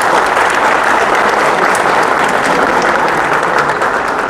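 A crowd applauding steadily, dense clapping.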